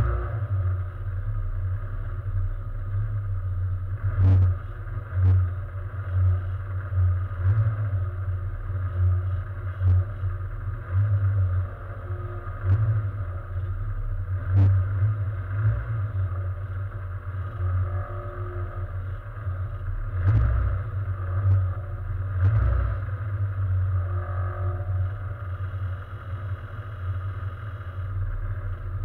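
A race car's engine idling at a standstill, heard from inside the stripped cabin. Its low note swells and dips every second or two, and a few sharp knocks or clicks come through.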